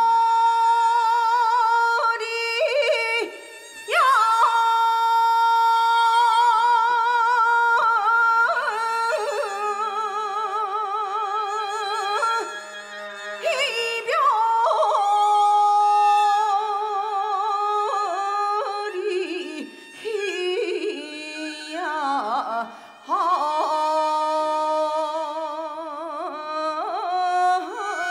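Gyeonggi sori performance music: long held melodic notes with a wide, wavering vibrato, from a small traditional Korean ensemble, in which a drum can be seen.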